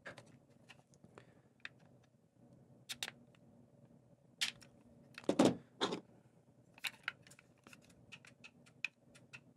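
Scattered light clicks and taps of small metal tools and aluminium pistol parts being handled, with two louder knocks a little past halfway.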